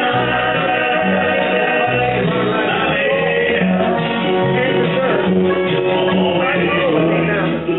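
Live bluegrass band playing a song: banjo, mandolin and acoustic guitar over an upright bass, with a man singing lead.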